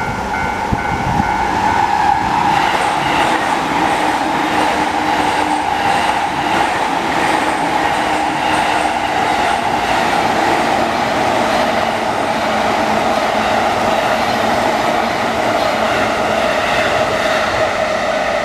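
JR electric commuter train running through a level crossing: a steady, loud rush of wheels on rail, its tone sinking slightly lower partway through. The crossing's electronic warning bell, drowned out while the train passes, is heard ringing again near the end.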